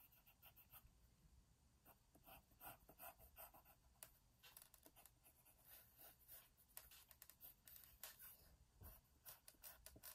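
Faint scratching of a colored pencil on paper, in many short, quick back-and-forth shading strokes that stop just before the end.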